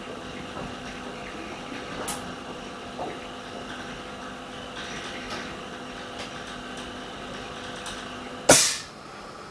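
Steady hum of a vacuum laminating machine running, with a few faint clicks, then a short loud hiss of air about eight and a half seconds in that fades within half a second.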